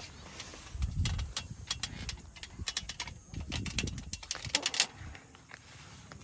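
Bare feet climbing down an aluminium ladder: a run of sharp metallic clicks and knocks from the rungs, mixed with low thuds, mostly between about one and five seconds in.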